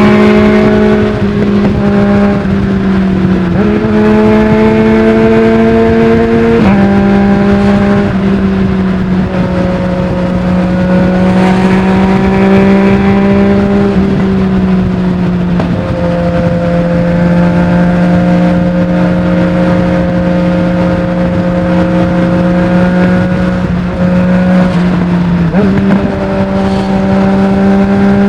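Yamaha MT-09's three-cylinder engine through a full Akrapovic exhaust with no dB killer, running at fairly steady revs while being ridden. The engine pitch steps up or down a little several times, around 3.5 s, 6.5 s, 16 s and 25.5 s, as the throttle or gear changes.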